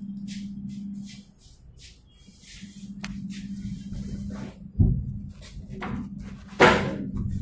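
A run of knocks, rustles and handling thumps, with two loud thuds about five and six and a half seconds in, the second one ringing on. A steady low hum runs underneath.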